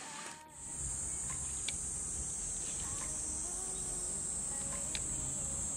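Steady, high-pitched insect chorus that starts abruptly about half a second in, with a few faint ticks.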